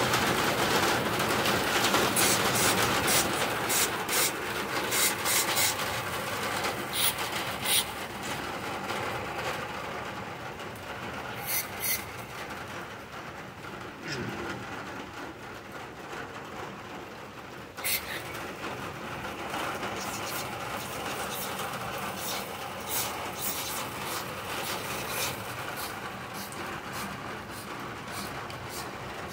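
Scrubbing and rubbing noise from cleaning grime off a lawnmower engine, with scattered sharp clicks. It is loudest over the first several seconds and then quieter.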